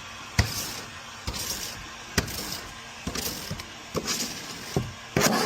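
A cleaning tool swiped in repeated strokes over a car's back window glass, each stroke making a soft swish and a light knock, about one a second.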